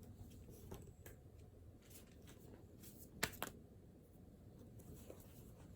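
Quiet room with faint desk-handling noises from studying: scattered light clicks and rustles, and one sharper click a little over three seconds in.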